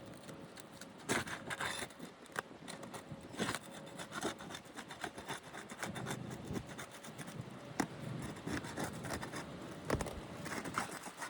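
A standard pry bar scraping and prying under roof shingles to break their sealant bond, heard as a run of scrapes with sharp ticks and cracks scattered through.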